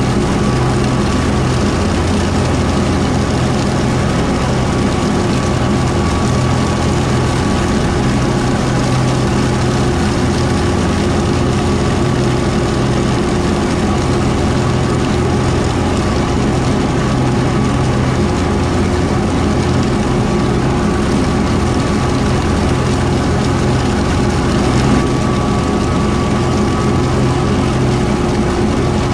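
Kubota M4-071D tractor's diesel engine running steadily under load while driving a Woods BW12 12-foot batwing rotary mower, a loud, even drone with no change in pitch.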